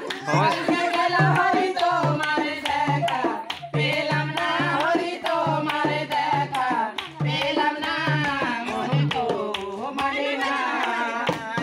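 Folk singing accompanied by a two-headed hand drum and hand claps. The drum's deep strokes keep a steady beat, then drop out briefly near the end.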